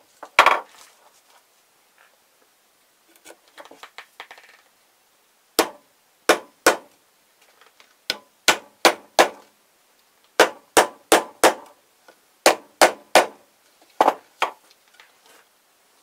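Hanger bolts being tapped down into a painted wooden board: a series of sharp taps in short groups of two to four, with one loud knock about half a second in.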